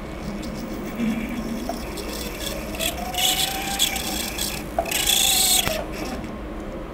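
Flex-shaft handpiece spinning a setting bur as it cuts seats into the prongs of a six-prong setting. A faint whine rises and falls in pitch, with two bursts of grinding and scraping about three and five seconds in.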